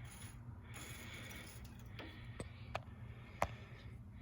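A few faint, sharp clicks and taps, four of them in the second half, over a low steady hum of room tone.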